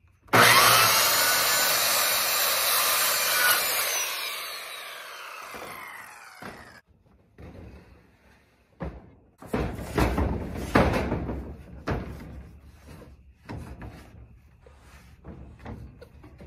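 Corded circular saw starting and cutting through a wooden board for about three and a half seconds, then the blade spinning down with a falling whine. A few seconds later comes a run of loud knocks and clatter, followed by smaller knocks.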